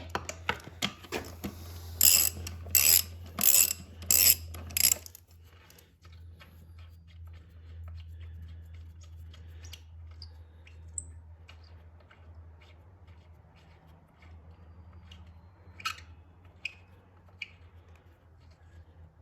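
Ratchet wrench clicking through about five quick strokes in the first five seconds, backing out a bolt on the underside of a small mower engine to see whether it serves as the oil drain plug; then a few faint scattered clicks over a steady low hum.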